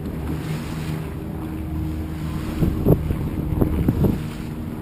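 Motorboat engine running at a steady pitch, with wind rumbling on the microphone and a few thumps in the second half.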